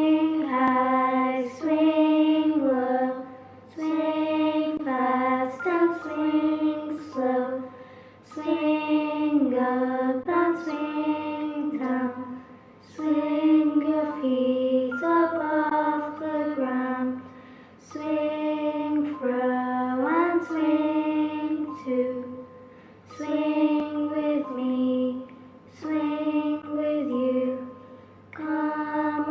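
A single high voice singing a slow melody in short, repeating phrases of one to two seconds, over a faint steady low hum.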